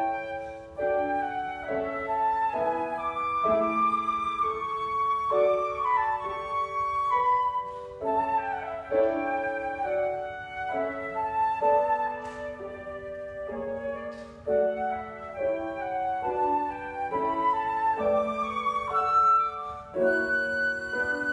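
Flute playing a melodic classical solo line with grand piano accompaniment. Near the end the flute settles onto a long held high note.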